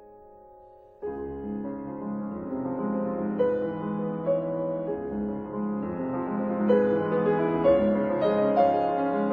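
Background piano music: a held chord dies away, then a fuller passage of notes begins about a second in and carries on.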